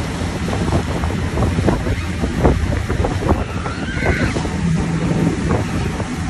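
Wind buffeting the microphone on a moving motorboat, over the boat's engine and the rush of water from its wake.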